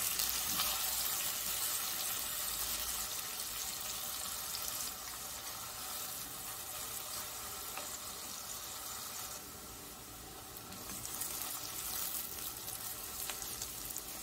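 Sliced onions and whole spices sizzling steadily as they fry in hot oil in a pan, browning toward golden.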